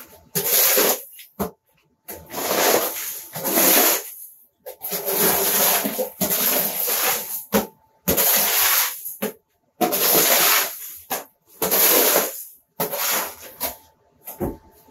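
Demolition debris scraped across the floor with a long-handled tool in about seven rough, hissing strokes, each up to a few seconds long, with short pauses between them.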